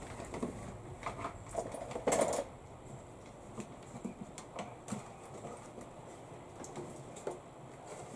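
Scattered light knocks and clatters of objects being handled and moved about while searching for a tool, with a louder clatter about two seconds in.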